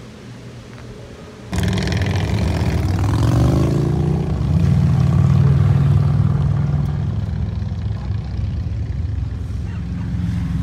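A car engine comes on suddenly about a second and a half in, revs upward for a couple of seconds, then settles into a steady low running note.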